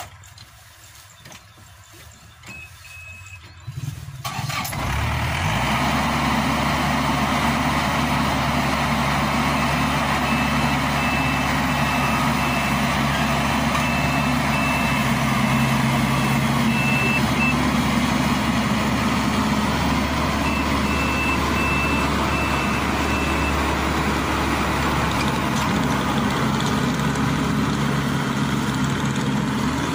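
Yanmar YH850 combine harvester's diesel engine starting about four seconds in and settling into a steady loud run. Over it a high electronic warning beeper sounds in rapid repeated pulses, in two spells of several seconds each.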